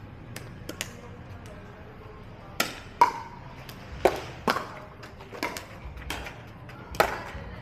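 Pickleball rally: sharp pocks of paddles hitting the hollow plastic ball, a few faint ones early, then about seven louder hits over the next five seconds, the loudest about three seconds in with a short ringing ping.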